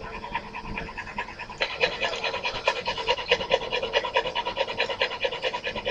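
A dog panting fast and hard, an even rhythm of several breaths a second that grows louder about two seconds in: heavy panting from overheating after being trapped in a hot car.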